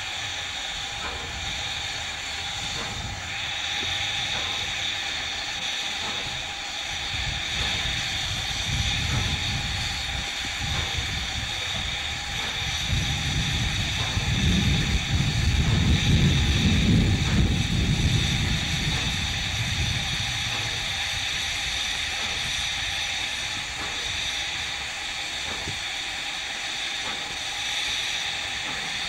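PKP class Ol49 steam locomotive standing with a steady hiss of steam from its fittings. A low rumble swells up in the middle and fades away again.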